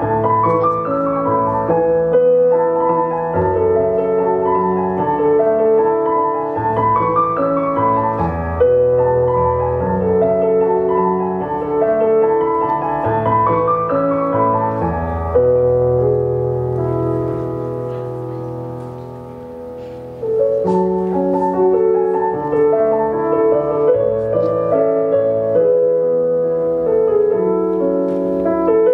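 Piano music with sustained low notes and rising runs. It grows quieter for a few seconds past the middle, then comes back at full level about twenty seconds in.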